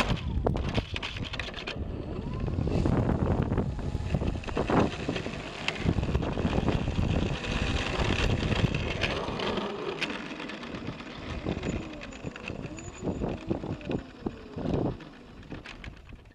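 Onboard sound of a radio-controlled Extra 330SC model airplane taxiing on pavement, its propeller turning at low power. There is a rough rumble from the wheels and airframe and wind on the microphone. The sound eases down and becomes patchier over the last few seconds as the plane slows.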